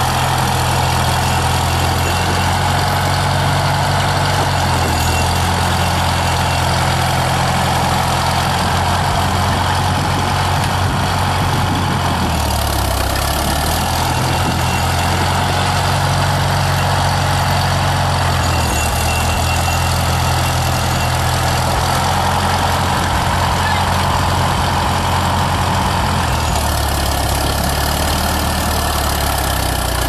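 Farmall M tractor's four-cylinder gasoline engine running steadily at a low, even pitch. The note shifts slightly a few times, about 13, 19 and 27 seconds in.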